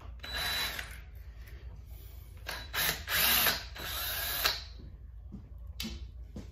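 Cordless drill-driver running in short spells as it backs screws out of an RC truck chassis: four runs in the first four and a half seconds, the third the loudest, then a few small clicks.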